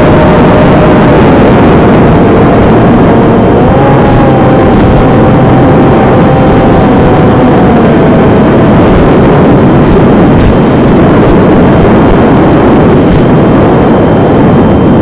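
Loud, steady wind rushing over the microphone, with the faint whine of the RC plane's electric motor and propeller stepping up and down in pitch with the throttle before fading out about nine seconds in.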